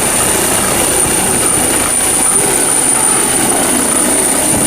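Helicopter sound, a steady whirring of rotor and engine noise.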